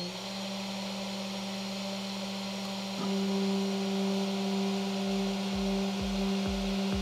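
X-Carve CNC router's spindle running steadily with a hum, just after spinning up, as the engraving bit clears copper from a PCB blank; it grows louder about three seconds in. From about five seconds in, background music with a steady kick-drum beat comes in, about two beats a second.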